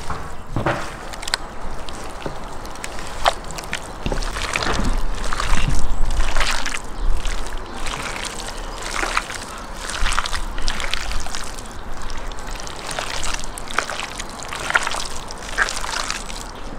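Hands kneading and turning wet chunks of raw lamb on a ceramic plate: irregular squelching and slapping of meat, with a low rumble a few seconds in.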